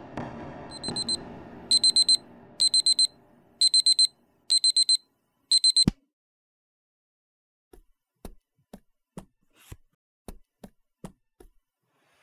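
Electronic alarm clock beeping in short rapid bursts about once a second, cut off by a single thump as it is slapped off near six seconds in. A run of about nine light taps follows.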